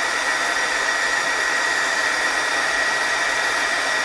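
Embossing heat gun blowing steadily, a constant fan rush with a high whine, aimed at a small paper button to melt and smooth its embossing powder.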